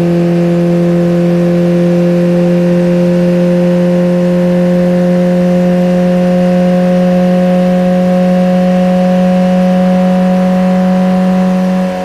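Car engine running steadily while driving, a constant drone whose pitch creeps slowly upward as it gathers speed.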